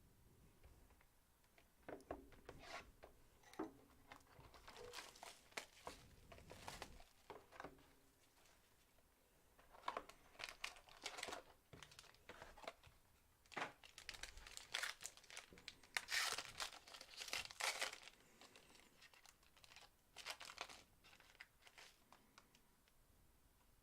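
Trading-card pack wrappers being crinkled and torn open, in short irregular bursts of rustling and tearing that are loudest about two-thirds of the way through.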